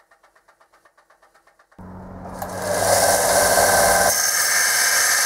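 Faint, rapid ticking of about six a second, then, a little under two seconds in, a small bench belt sander's motor starts with a hum and a loud, steady hiss as a metal casting is held against the sanding belt.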